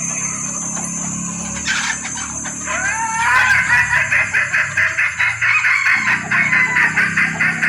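Junglefowl hen calling: a rising call, then a fast run of repeated short clucks, about four a second, used as a lure to draw in males.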